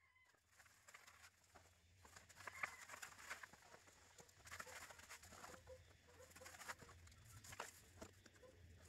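Faint irregular crackling and sputtering hiss of expanding foam sealant being sprayed from a can into gaps between rocks. It starts from near silence at the opening.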